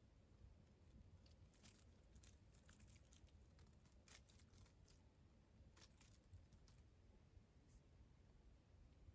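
Near silence: quiet room tone with a few faint, brief rustles and ticks scattered through it.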